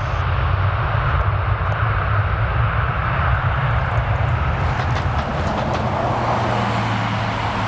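Boeing 747-400's four Rolls-Royce RB211 turbofans at take-off thrust during the take-off roll and rotation: a steady, loud jet rumble, with a hiss that grows stronger from about five seconds in.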